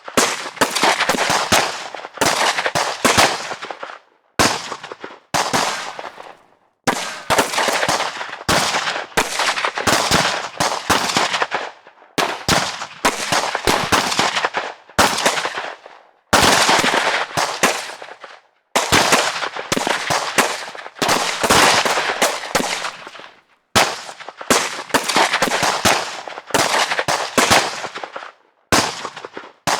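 Gunfire sound effects: repeated bursts of rapid automatic fire, each burst lasting one to a few seconds with brief pauses between, the shots echoing.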